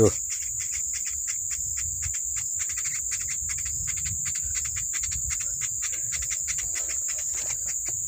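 Young woodpecker nestlings (pelatuk beras) calling from inside their nest hole in a tree trunk as rapid, irregular high ticks and chirps. The chicks are still small. A steady high insect drone runs underneath.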